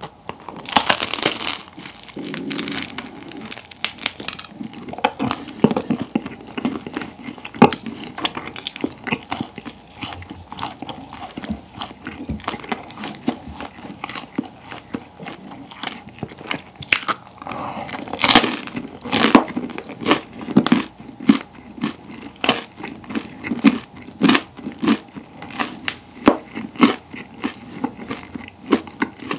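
Bites and chewing of a crisp, crusty pollock roe baguette topped with mayonnaise: a steady run of sharp crunches, heaviest just after the first bite and again about two-thirds through.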